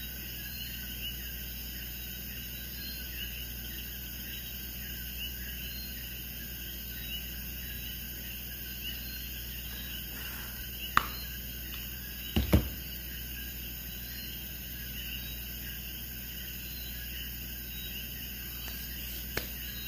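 Quiet background with faint, short chirping calls repeating every couple of seconds. A sharp click sounds about eleven seconds in, and a louder knock follows about a second and a half later.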